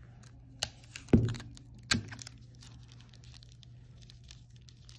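Wooden craft sticks wrapped in plastic being handled and flipped over on a tabletop: a few knocks and clicks, the loudest a dull knock about a second in and another sharp one just after, with faint plastic handling in between.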